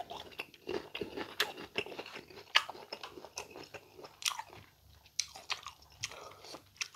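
Chewing a mouthful of crisp raw green mango close to the microphone: irregular crunches and wet mouth clicks, several a second.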